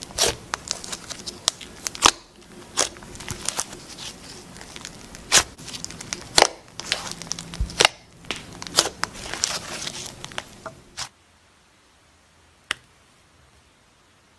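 Butter slime being squeezed, stretched and pulled apart by hand, making sticky crackles, pops and tearing sounds. The sounds stop suddenly about eleven seconds in, leaving faint hiss and a single click.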